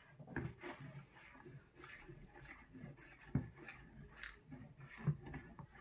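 Faint scraping and tapping of a plastic spatula stirring salt and oil into warm water in a plastic mixing bowl, irregular, with a few slightly louder knocks against the bowl.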